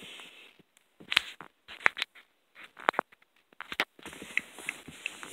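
Scattered sharp clicks about a second apart, then a low rustle with faint ticks: handling noise, with no music playing.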